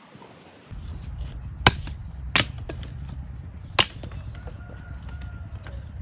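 Dry branches snapping as they are broken by hand for firewood: three sharp cracks a second or so apart, with smaller crackles of twigs in between, over a low rumble of wind on the microphone.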